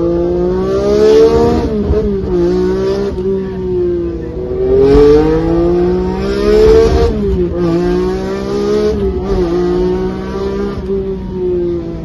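Lancia Stratos HF Group 4's Ferrari Dino 2.4-litre V6, heard from inside the cockpit, accelerating through the gears. The engine note rises, drops at an upshift about a second and a half in, climbs hard again from about four and a half seconds to another upshift at about seven seconds, then runs on at lighter throttle.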